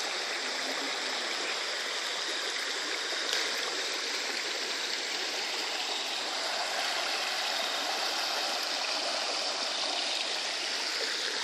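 Steady rush of flowing water from a muddy creek, an even noise with no breaks.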